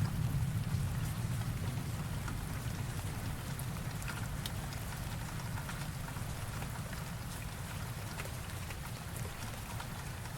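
Steady rain with scattered drop ticks, over the low rumble of a thunderclap slowly dying away.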